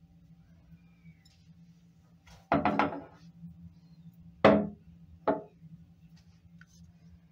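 Glass Modelo Trigo beer bottle knocking on a hard countertop: a quick clatter of several knocks, then a loud single knock and a lighter one about a second later as the bottle is set down.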